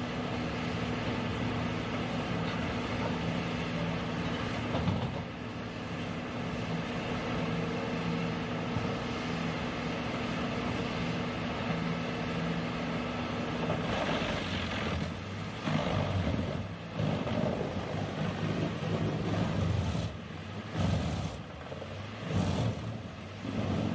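A large machine's engine running steadily. About two-thirds of the way in, the steady hum gives way to an uneven sound that surges and dips.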